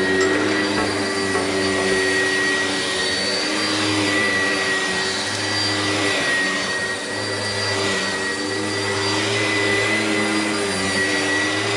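Oreck XL upright vacuum cleaner running steadily as it is pushed back and forth over carpet, a constant high motor whine over a low hum, swelling slightly with each stroke.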